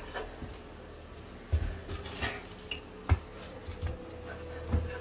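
A sheet of cement backer board being carried and set up against a wall, with a handful of dull knocks and scrapes as it is handled. The loudest knock comes about three seconds in.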